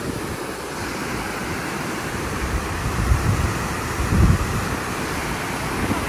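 Steady rushing of whitewater rapids in a flood-swollen river, raging after heavy rains. Wind buffets the microphone with low rumbles about three and four seconds in.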